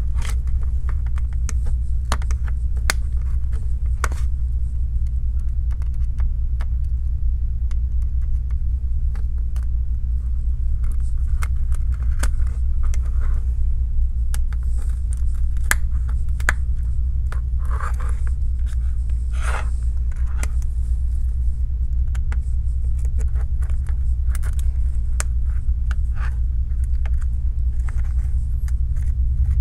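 A steady low hum runs under scattered small scrapes and clicks as a thin pry tool cuts through the screen adhesive around an iPhone 12's frame.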